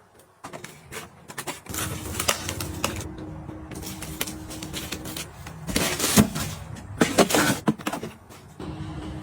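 Light clicks and taps of items being handled, then a steady low hum with louder clattering knocks over it near the middle.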